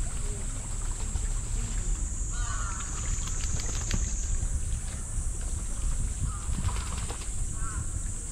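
Outdoor pond ambience: a steady high-pitched insect drone with wind rumbling on the microphone. A few short chirping calls come about two and a half seconds in and twice more near the end.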